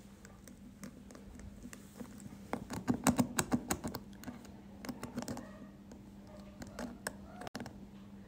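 Number wheels of a small three-dial combination padlock clicking as they are turned by thumb while codes are tried: irregular runs of light clicks, busiest about three seconds in, over a faint steady hum.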